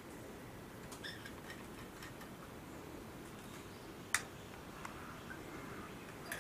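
Quiet background with a few faint, scattered clicks and one sharper click about four seconds in.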